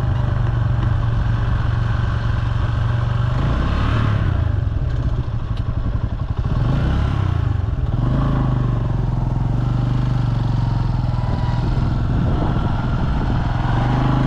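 Bajaj Boxer 150X motorcycle's single-cylinder engine running, with wind noise over it. The engine sound dips and falls away briefly about five seconds in, then steadies again.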